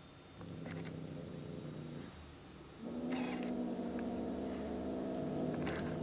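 A cat purring up close: a softer stretch that stops about two seconds in, then a louder, steady purr from about three seconds in, with a few faint clicks over it.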